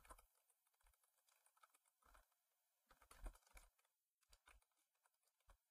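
Faint computer keyboard typing: scattered single keystrokes, one a little louder about three seconds in.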